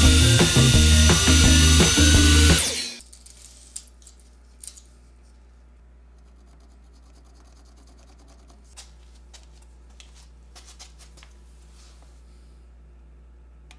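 Miter saw running and cutting a 5-degree angled end on a tapered walnut table leg, a steady whine with background music, both stopping abruptly about three seconds in. After that only a few faint clicks and taps.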